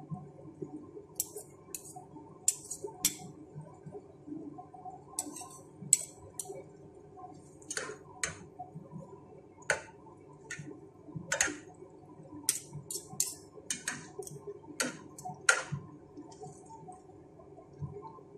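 Cooking utensil clicking and tapping against a nonstick pan at irregular intervals while spaghetti noodles are tossed, over a faint steady low hum.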